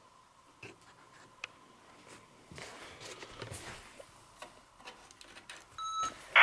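Quiet room tone during a silent EVP session: scattered faint clicks and small knocks over a faint steady high whine, with a soft rustle in the middle. Near the end comes a short electronic beep, the loudest sound here.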